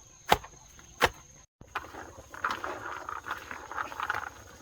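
Two sharp chopping strikes about three-quarters of a second apart, a blade cutting green bananas on a board. Then the sound cuts off briefly and a busier, irregular scratching and pattering texture takes over.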